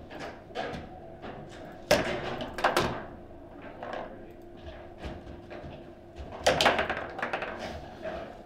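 Table football being played: the ball cracking off the red and blue plastic player figures and the table's walls, in sharp irregular knocks and clatter. The loudest shots come about two seconds in and again around six and a half to seven seconds.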